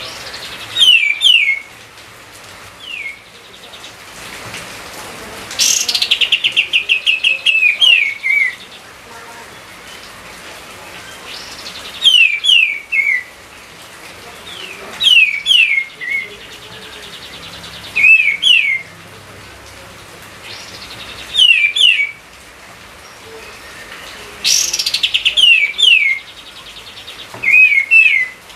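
A songbird singing loud, repeated short phrases of quick downslurred whistles, a new phrase every few seconds. Two of the phrases open with a fast rattling trill, one about six seconds in and one near the end.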